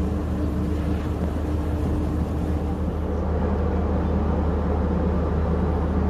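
Steady low drone of a cruise ship's machinery. A steadier, higher hum drops out about halfway through.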